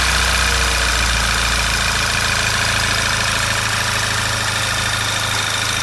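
Rebuilt Volkswagen Golf GTI 2.0 TSI (CCZ) four-cylinder turbocharged petrol engine idling steadily and evenly. It runs "like a clock", with no knock or extra noise after the repair.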